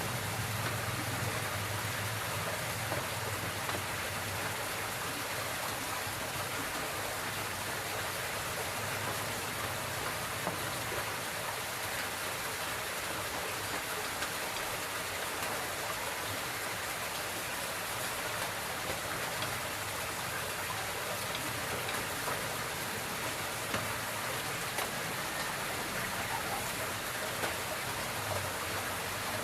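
Steady, unbroken hiss of water, like a spray jet or falling rain, with no pauses.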